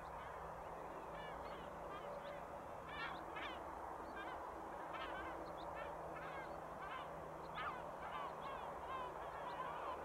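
A flock of gulls calling, many short overlapping calls several a second, over the steady low drone of a distant tractor engine.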